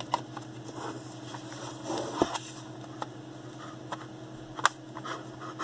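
Scattered plastic clicks and knocks as the back cover of a Brother PT-H200 P-touch label maker is fitted and snapped shut, the sharpest about two seconds in, over a steady low hum.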